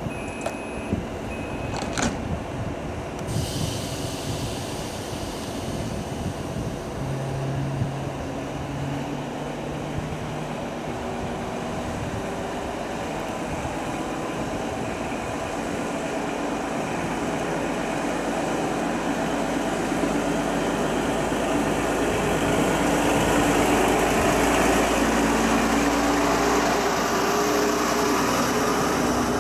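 BR 628 diesel multiple unit pulling out, its underfloor diesel engine working up through the gears and growing louder as the railcar draws near and passes close by. A couple of short beeps and a clunk come in the first few seconds.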